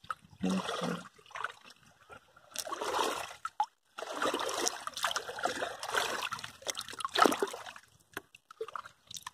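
A hand sloshing and splashing through shallow river water while scooping up wet pebbles, in several bursts with brief pauses between them.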